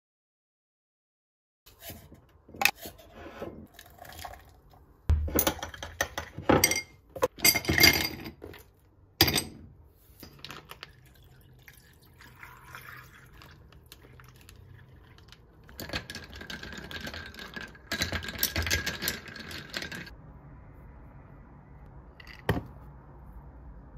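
Crinkling and handling clicks from cling film around a sandwich, then milk poured from a carton into a glass, a splashing pour with a steady tone in the second half, and a single click near the end.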